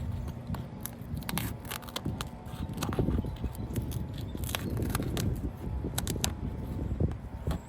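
Hand tools working on asphalt roof shingles: irregular sharp clicks, snips and scrapes as the damaged shingle is cut and pried loose, over a low steady rumble.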